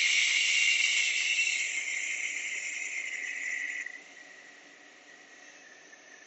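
A long, forceful breath-out hissed through the teeth as part of a breathing exercise. It is loud for about four seconds, then trails off into a faint hiss.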